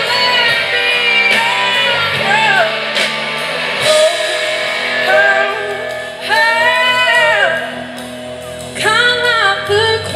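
Live blues-rock band playing: a woman sings lead over electric guitar, bass guitar and drums.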